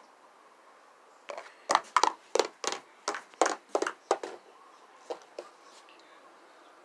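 Plastic toy horse figurines tapped along a wooden deck railing to make hoofbeats: a run of about ten sharp knocks, roughly three a second, starting about a second in, then two fainter taps.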